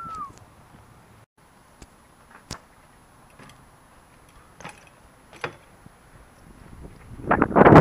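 Scattered light ticks and clicks from BMX bikes on concrete. About seven seconds in, wind noise on the microphone and tyre rumble build quickly as the follow camera picks up speed, and this rush is the loudest part.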